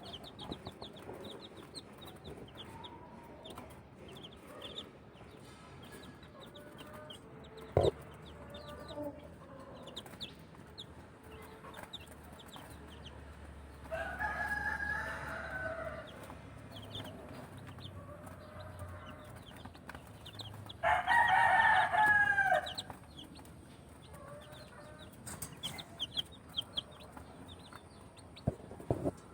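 Six-day-old Lemon 2.0 chicks peeping continuously in short high cheeps. An adult rooster crows twice, about halfway through and again, louder, about two-thirds through. There is a single knock near the quarter mark.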